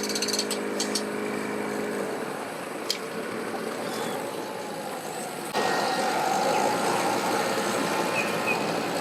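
Vehicle engines running. A steady hum with a few sharp clicks stops about two seconds in, and about five and a half seconds in the engine noise jumps suddenly louder.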